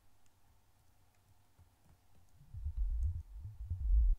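Helm software synthesizer playing a very low note through its bubbling patch: a deep, irregular, fluttering bubbling sound. It starts about two seconds in, after a near-quiet stretch with a few faint clicks.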